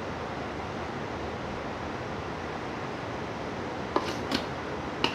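Steady fan-like background hiss, with three short clicks or taps near the end.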